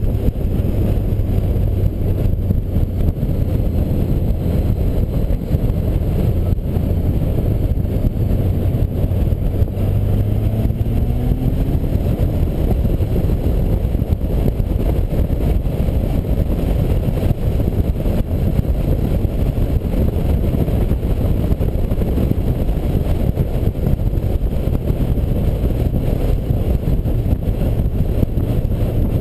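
Touring motorcycle riding at road speed, heard from the rider's seat: a steady engine drone under heavy wind rush on the microphone. The engine note rises once about ten seconds in.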